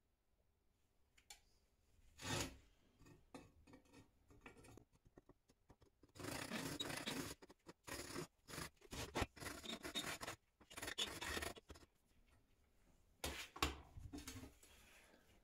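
Rasping, scraping strokes of a hand tool, each about a second long with short pauses between them. A run of them comes in the middle, and one more comes near the end.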